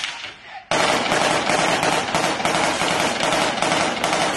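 Automatic small-arms gunfire: a few separate shots, then, under a second in, a long unbroken stretch of rapid fire that keeps going for more than three seconds.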